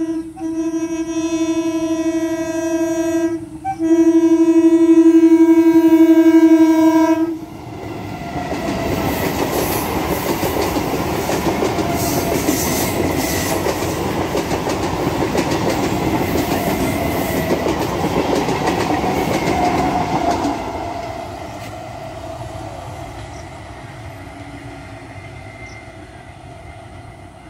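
Indian Railways EMU local train sounding a long steady horn blast, a brief break, then a second louder blast that stops about seven seconds in. The train then passes at high speed with a loud rush and clickety-clack of wheels over rail joints for about thirteen seconds, fading away as it draws off.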